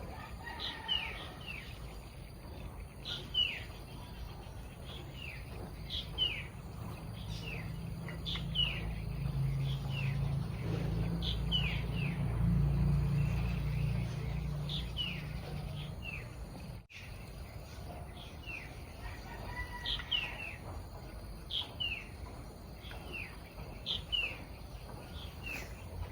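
Small birds chirping over and over, each call a short falling note. A low rumble swells in the middle and fades again.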